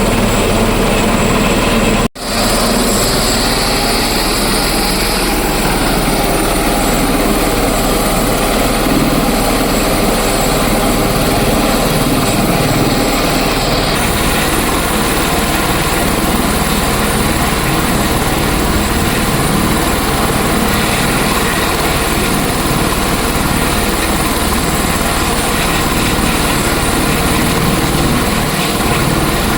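Helicopter running with a loud, steady drone. There is a brief gap about two seconds in, and the low end of the sound shifts about fourteen seconds in.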